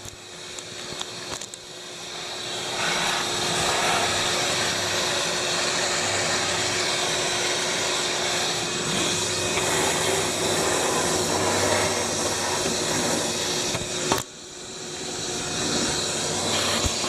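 Vacuum cleaner running steadily, sucking up mouse droppings; it builds up over the first few seconds, cuts out briefly about fourteen seconds in and starts again.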